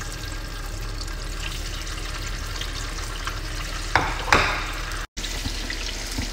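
Hot oil sizzling steadily in a frying pan as pieces of tofu stuffed with minced pork fry. Two sharp clatters about four seconds in are the loudest sounds.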